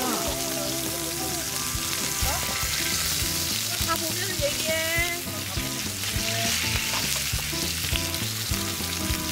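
Pork belly and vegetables sizzling steadily on a hot griddle pan, with music playing underneath.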